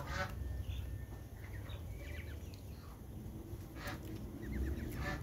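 Scattered short bird chirps and calls, some in quick runs of high chirps, over a low steady rumble.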